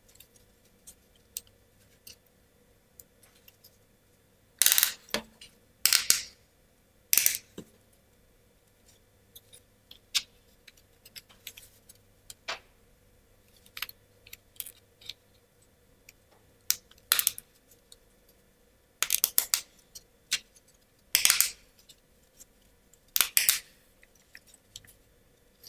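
Laser-cut plywood model-kit parts being handled and pressed into place: a string of dry wooden clicks and knocks at irregular intervals, about seven of them louder and sharper than the rest.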